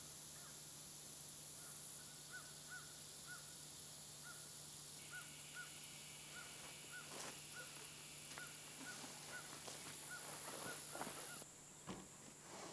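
Faint short calls from an animal, repeated evenly about two or three times a second over a steady low hum.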